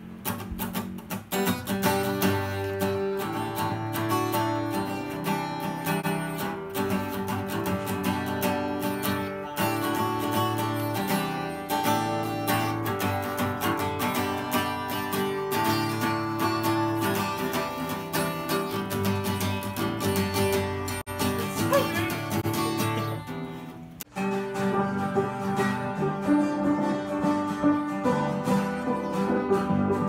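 Acoustic guitar strummed in chords, stopping briefly near the end and then starting again.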